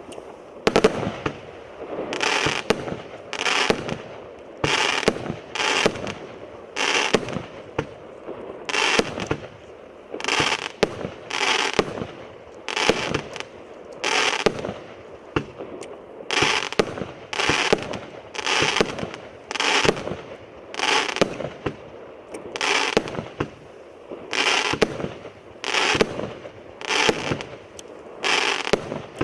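Evolution 'Atlas' firework going off in a steady run of shots and bursts, a little more than one a second.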